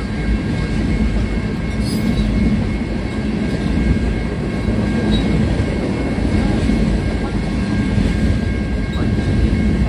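Tank cars of a freight train rolling steadily past, a continuous rumble of steel wheels on the rails.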